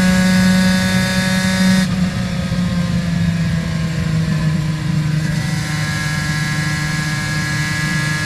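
Aprilia RS 250's two-stroke V-twin with Arrow exhausts running at high revs, from the rider's seat; about two seconds in the throttle shuts and the revs fall away over the next few seconds, then the engine holds a lower, steady pitch.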